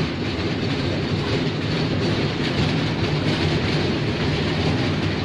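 Children's park mini train ride running along: a steady low drone with the clattering rattle of the open carriage.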